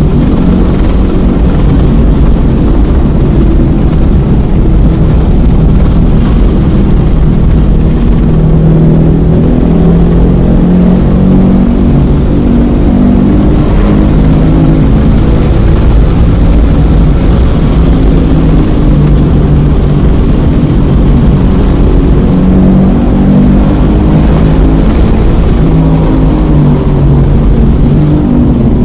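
Sports car engine at full throttle, heard from inside the cabin, its pitch climbing and stepping through gear changes, then dropping as the car slows for a corner. Low steady rumble of road and wind noise underneath.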